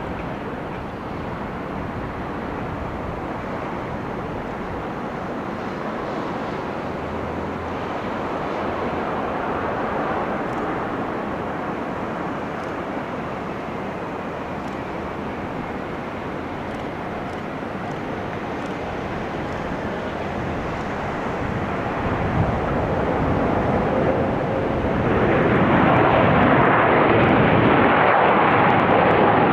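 Airplane engines running as a steady rushing noise, which grows markedly louder about three quarters of the way through.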